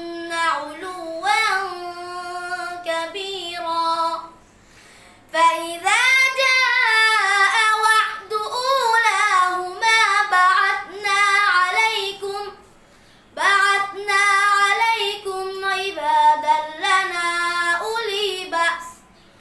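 A boy's solo voice reciting the Quran in the melodic tilawat style, with long held and ornamented notes. The recitation breaks off for short pauses about four seconds in, around thirteen seconds in, and near the end.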